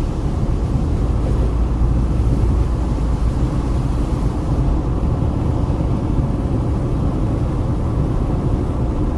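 Steady low rumble of a car driving on the road: tyre and road noise with the engine underneath.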